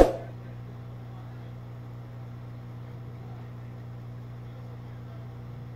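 Hot air rework gun blowing steadily at low air speed, a low even hum. A single sharp click with a short ring comes right at the start.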